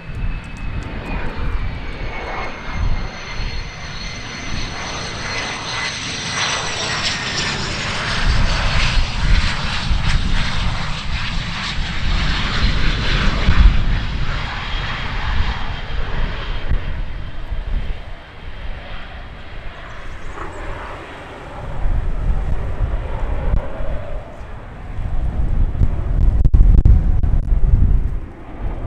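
Cessna Citation business jet landing past on the runway: its turbofan whine falls in pitch as it goes by, then gives way to a broad rush of engine noise. Heavy low rumbling comes in bursts near the end.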